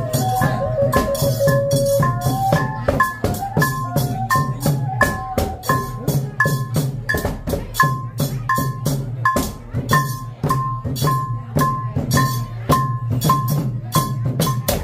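Khmer chhay yam festive music played live on drums and percussion. A steady drum pulse runs under a ringing metal stroke about twice a second. A wavering high melody sounds over them for the first few seconds and then drops out.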